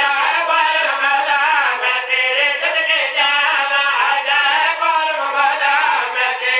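Several men singing a slow devotional refrain together into microphones, holding long, drawn-out notes.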